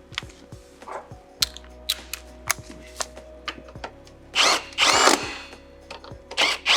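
Sharp clicks about two a second, then a cordless power driver running in short bursts, its motor whine rising as it spins up, likely running in the brake caliper mounting bolts.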